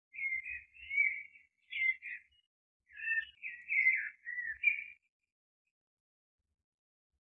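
High, bird-like chirping and warbling calls in a few quick runs over about five seconds, then stopping.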